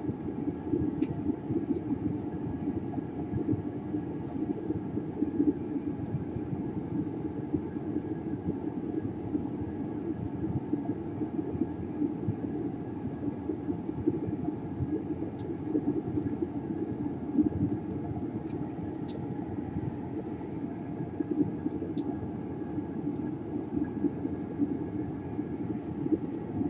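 Steady whir of a small fan motor running, with a few faint light clicks scattered through.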